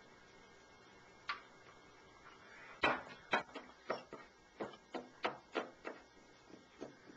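Chess pieces being set down on a board: one sharp click, then from about three seconds in a quick, uneven run of clicks and taps, roughly two a second.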